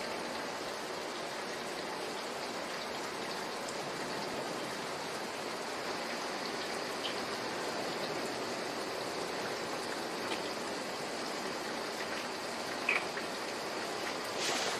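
Steady rain falling, with a couple of brief high chirps near the end.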